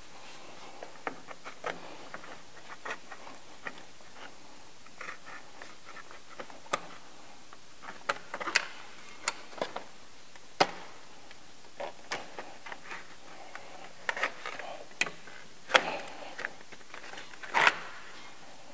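Irregular small clicks and taps of plastic air-deflector push-pin fasteners being pried out with a screwdriver. A few sharper clicks stand out, the loudest near the end.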